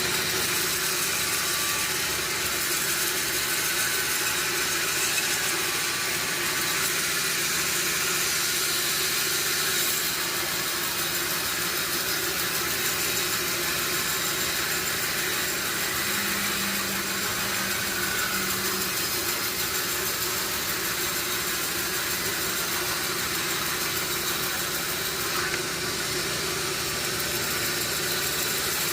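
Sawmill machinery running steadily, a constant mechanical hum with hiss.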